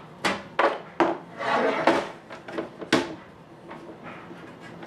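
A DVD home theater unit's sheet-metal chassis and top cover being handled on a wooden board: about five sharp knocks and a scrape in the first three seconds, then quieter rubbing.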